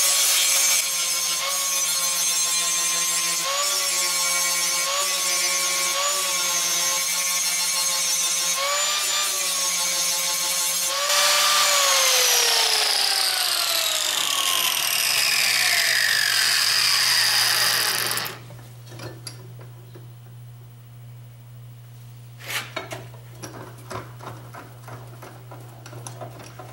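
Handheld angle grinder with a grinding wheel sharpening the edge of a steel lawnmower blade clamped in a vise: a steady high whine that dips slightly each time the wheel bears on the metal. About eleven seconds in it is switched off and winds down, its whine falling over about seven seconds. After that there is a low steady hum and a few light knocks near the end.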